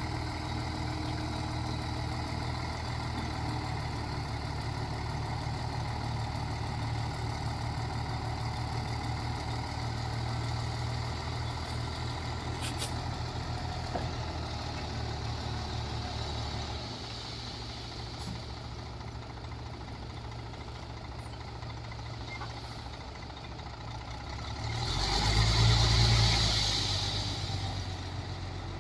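Heavy diesel earthmoving machinery running steadily. About 17 s in the engine note drops and runs quieter. Near the end a louder swell with a hiss rises and fades over about two seconds.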